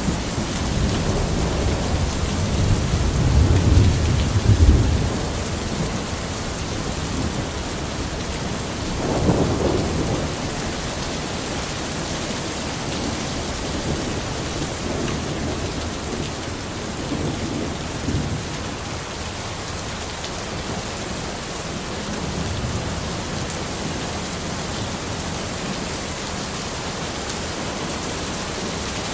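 Steady heavy rain in a forest, with a roll of thunder rumbling through the first five seconds and loudest near the fifth, then a shorter, fainter rumble about nine seconds in.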